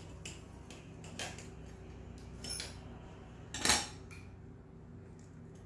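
A fork clinking and scraping on a dinner plate as a bite is taken, with several light clicks and one louder scrape about three and a half seconds in.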